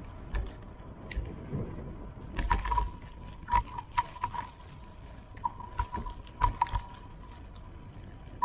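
Irregular knocks and rattles from riding over bumpy ground, in clusters of quick clacks, over a faint steady high tone and a low rumble.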